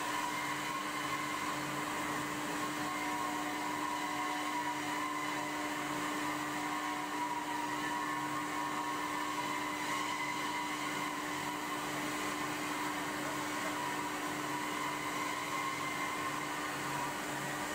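Steady machine whir and hum of forge-shop equipment around a plate-heating furnace, with a faint low throb pulsing underneath.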